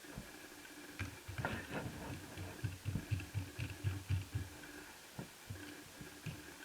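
Hand-tool handling noise from taking the heatsink off a netbook's motherboard: soft low knocks and light clicks, a quick run of several a second in the middle, over a faint steady hum.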